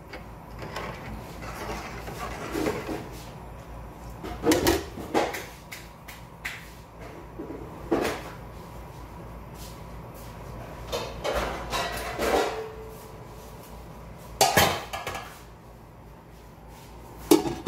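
Metal kitchenware clanking against an aluminium cooking pot: several separate sharp knocks and clinks, the loudest about four and a half and fourteen and a half seconds in.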